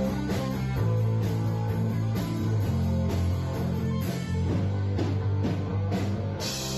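Intro music with a steady beat and sustained low notes.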